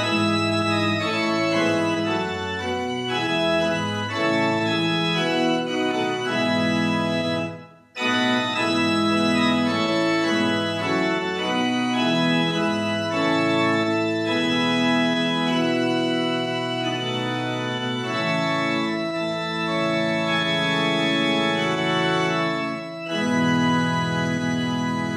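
Organ music: slow sustained chords, breaking off for a moment about eight seconds in.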